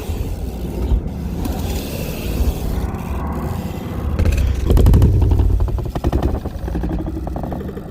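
A BMX bike being ridden on pavement: tyres rolling, with a louder scraping clatter about five seconds in, under a low wind rumble on the microphone.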